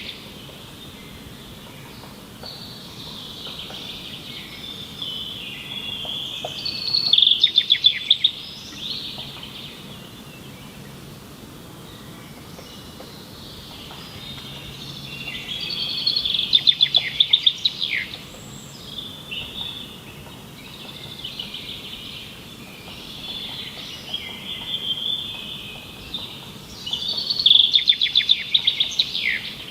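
Songbirds singing: a steady run of chirps and warbles, broken about every ten seconds by a louder, rapid trill that ends in a downward sweep, three times in all.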